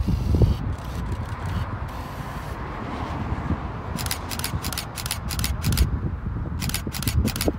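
Distant Eurofighter Typhoon jet, its twin turbofans a low, fluctuating rumble mixed with wind buffeting the microphone. Two short runs of rapid ticks come about four seconds in and again near the end.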